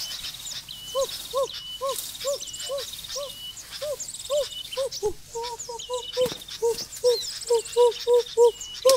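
Birds calling: a quick run of short low hooting notes, about two or three a second and briefly faster about five seconds in, with higher chirps and trills over them.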